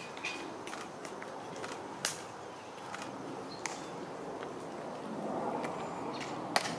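Quiet outdoor ambience broken by about ten sharp, irregularly spaced clicks. The loudest comes about two seconds in and another near the end.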